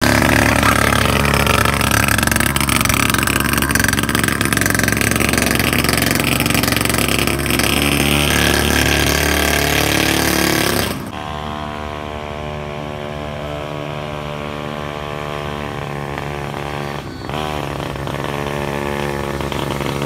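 Small two-stroke engine of a 50cc mini ATV running, loud and harsh for about the first half, then suddenly quieter and even at a steady pitch, with a brief dip in pitch and recovery near the end.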